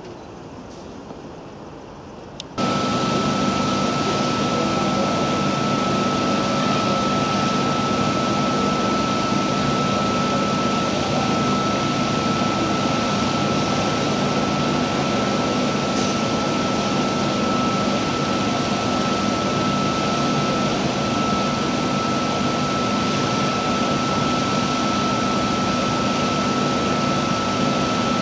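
Steady hum of a stationary double-deck electric train's auxiliary equipment idling, with a constant high whine over a low drone. It starts suddenly about two and a half seconds in, after a quieter background.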